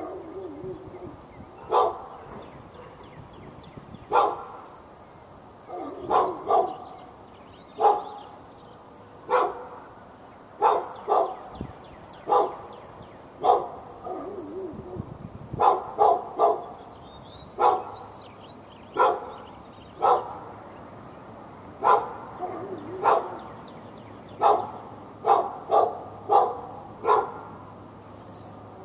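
A dog barking over and over at the dog next door: single sharp barks roughly once a second, irregularly spaced, some coming in quick pairs or triplets.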